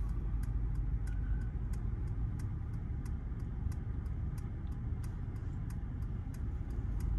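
Turn-signal indicator ticking in a Mercedes S-Class cabin, about three clicks a second, over the low rumble of the car creeping as its automated park assist steers and brakes it into a parking space. A short faint beep comes about a second in.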